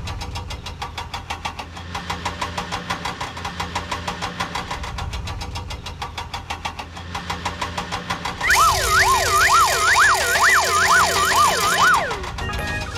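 A cartoon vehicle engine sound effect running with a steady chugging pulse. About eight seconds in, a louder warbling, siren-like wail of several overlapping rising and falling tones joins for about three and a half seconds, then stops.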